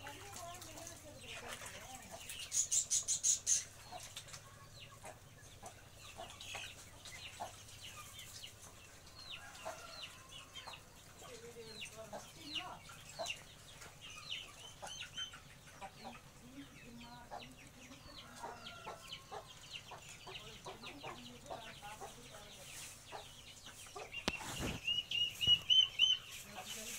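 Backyard chickens and ducklings calling: many short, high peeps throughout, with clucking. About three seconds in there is a quick run of rapid pulses, and near the end comes a louder, high, pulsing call.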